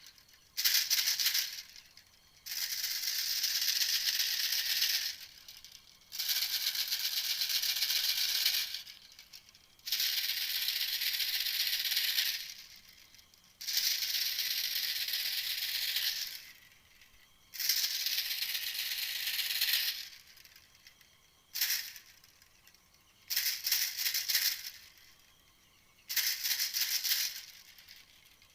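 Recorded bird call played as a hunting lure: a high, rapid rattling trill repeated in bursts of two to three seconds with short pauses between, about nine times.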